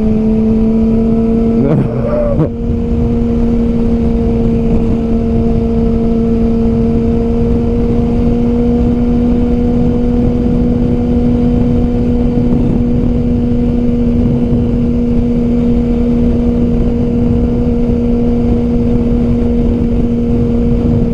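Yamaha R6's inline-four engine running at a steady high rpm while the motorcycle cruises, a constant held engine note over wind rush. There is a brief dip in the sound about two seconds in.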